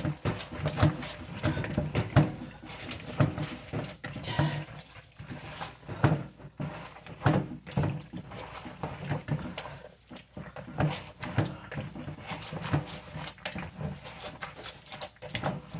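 Hands squeezing and scrubbing wet boiled bitter leaves in a plastic bowl: many short, irregular wet squelches and rubbing sounds. This is the washing of the leaves that takes out some of their bitterness.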